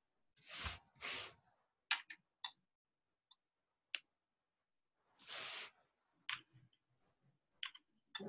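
Faint handling noises: a few short soft rustles, the longest about five seconds in, and scattered small clicks between them.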